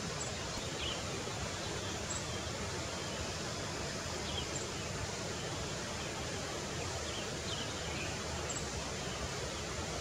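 Steady outdoor hiss with a few faint, short, high bird chirps scattered through it.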